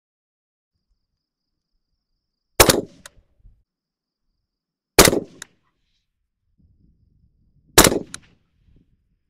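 Suppressed 16-inch KAC SR-25 .308 rifle firing three shots about two and a half seconds apart. Each is a sharp crack with a short tail and a fainter second crack a fraction of a second after.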